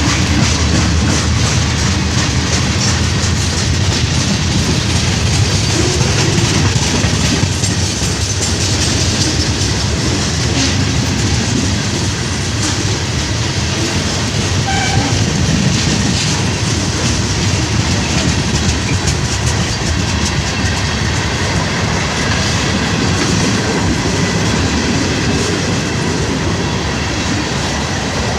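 Freight cars of a chemical train rolling steadily past, their wheels clacking over the rail joints.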